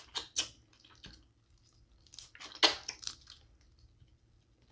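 Close-miked eating: wet chewing and sucking on sauce-covered snow crab legs, a few short squishy smacks with the loudest about halfway through.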